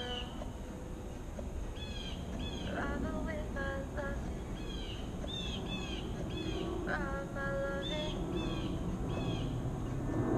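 Birds singing outdoors: short chirping phrases repeated every half second or so, over a steady low background noise.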